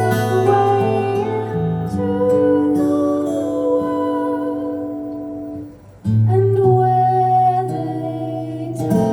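Live instrumental passage: strummed and plucked guitar chords ringing out. The sound fades briefly about six seconds in, then a new loud chord comes in.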